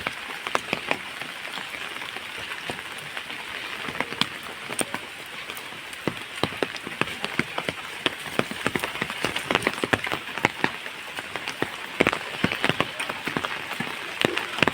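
Steady rain with an even hiss, and many sharp, irregular drops hitting close by.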